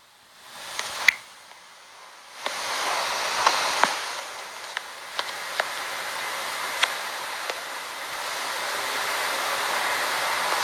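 A steady rushing hiss that comes in about two and a half seconds in, with a few faint sharp clicks scattered through it.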